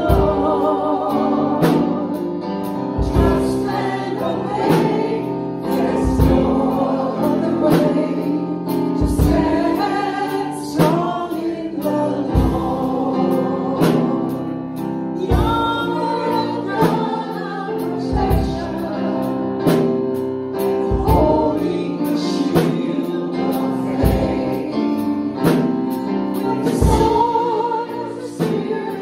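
A small mixed vocal group, one man and three women, singing a Christian worship song into microphones, over instrumental accompaniment with a steady beat.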